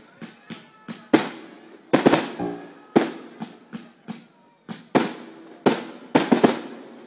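Aerial fireworks bursting in a rapid, irregular series of loud bangs, about two or three a second, each followed by a short echoing tail. This is the final barrage of the display.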